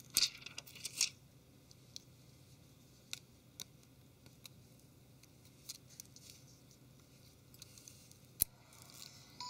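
Thin clear plastic protective film being peeled off a phone's screen. It gives two short crackling rustles, about a quarter second and a second in, then scattered faint clicks of fingers handling the phone, with one sharp tick near the end.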